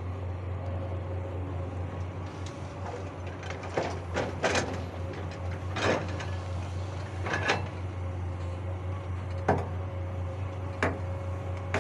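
Hydraulic excavator's diesel engine running with a steady low hum while it works, with several sharp knocks from the bucket and arm at irregular intervals in the second half.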